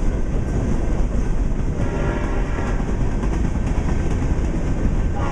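Approaching Norfolk Southern diesel freight train rumbling steadily. About two seconds in, the locomotive's air horn starts sounding, a faint chord of several steady tones.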